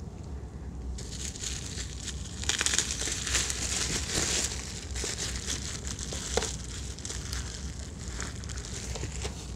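Plastic bubble wrap crinkling and crackling as hands handle and fold it back from two boxed albums, starting about a second in and loudest a couple of seconds later.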